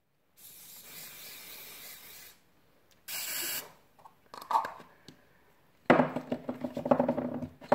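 Aerosol slime-activator spray hissed onto the hands: a softer hiss lasting about two seconds, then a short, louder burst. About six seconds in comes louder rubbing of sticky hands together, full of small clicks.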